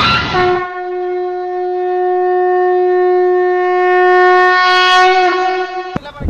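One long, steady blast on a blown horn, held at a single pitch for about five seconds, wavering slightly near the end before it stops.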